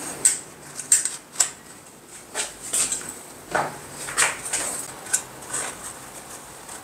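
A scuba harness being tightened by hand: the nylon waist-strap webbing is pulled and adjusted around the backplate, giving irregular clicks, clinks and rustles.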